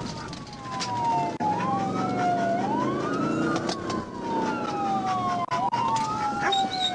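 Police cruiser's siren on wail, sweeping quickly up and slowly back down about every two and a half seconds, over the cruiser's engine and road noise.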